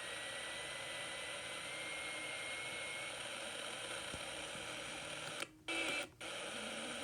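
WR400 radio tuned to 87.5 FM giving out steady static hiss, with a faint high squeal that slowly rises in pitch and fades about three seconds in. Near the end the sound cuts out briefly twice.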